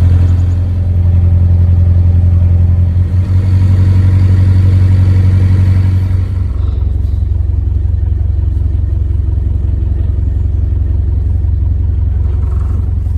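Narrowboat's diesel engine running steadily under way, a deep hum; about six seconds in it drops a little in level and changes tone, then runs on steadily.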